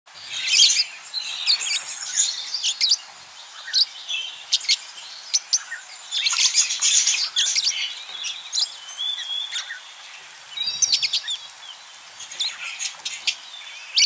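A flock of budgerigars chirping and warbling, many short fast chirps overlapping, with dense bursts of chatter about half a second in, around six to seven seconds, and near the end.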